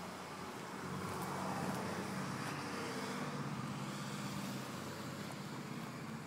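Steady engine noise with a low hum, swelling slightly about a second in.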